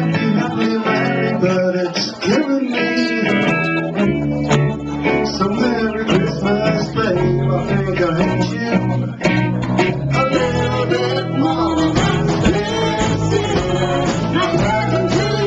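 Live band playing a pop song: electric guitar, saxophones and drums, with a continuous, loud, full-band texture.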